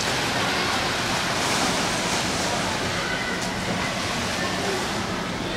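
Steady wash of splashing from swimmers racing front crawl in an indoor pool, echoing in the hall, with crowd voices in the background.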